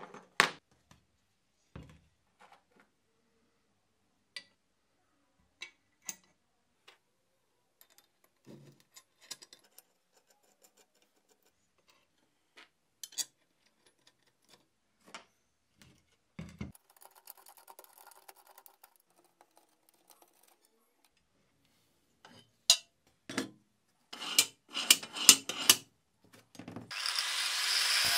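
Scattered clicks and knocks of tools and metal workpieces being handled on a workbench, growing busier toward the end. Near the end a power tool starts up and runs steadily.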